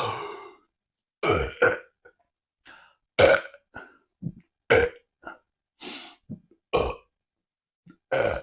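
A person burping over and over: about half a dozen short, loud burps roughly a second apart, with smaller burps between them.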